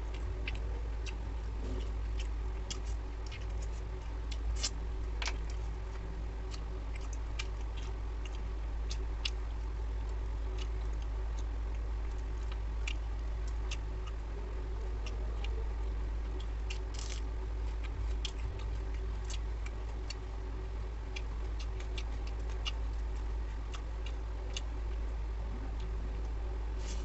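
Eating sounds: irregular sharp clicks and wet smacks of chewing, a few a second, over a steady low hum.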